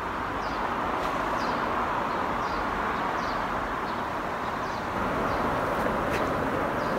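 Small birds chirping, short falling chirps repeating about once a second, over a steady outdoor background rush.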